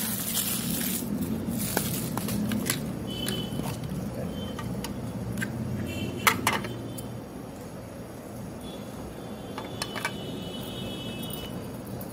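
A clear plastic watch box being opened and a wristwatch taken out and handled: light plastic clicks and small metallic rattles, with a sharp double click about six seconds in.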